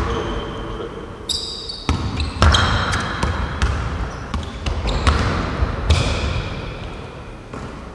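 Basketball bouncing and players' sneakers squeaking on a hardwood gym floor during one-on-one play: a run of ball and foot thuds with several short, high squeaks.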